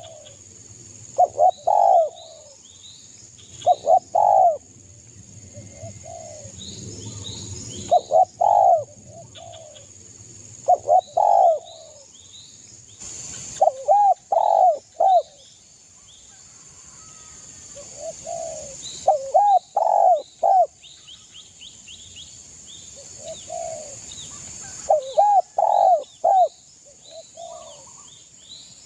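Spotted dove (derkuku) cooing in short phrases of two to four coos, repeated every few seconds. Faint chirps of small birds sound in between.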